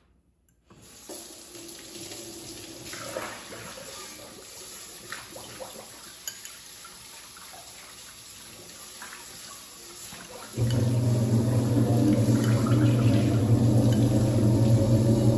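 A fork clinks and scrapes lightly against a ceramic bowl as eggs are whisked. About ten seconds in, a kitchen tap starts running into the sink, loud and steady, and drowns it out.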